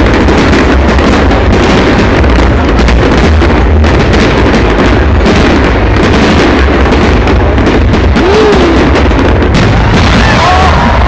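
Fireworks bursting loudly in dense, continuous succession, a constant crackle and banging with no pause. A pitched whoop rises and falls about eight seconds in, and again near the end.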